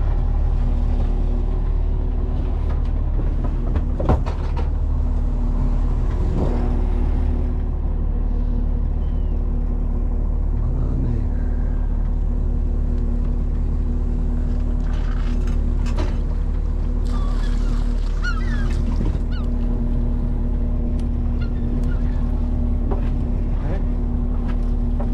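Fishing boat's engine running steadily with a constant low hum, with a few sharp knocks and some short high chirps about two-thirds of the way through.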